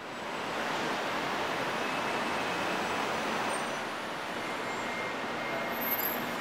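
Steady, dense din of a busy train terminal, with faint high squeals near the end.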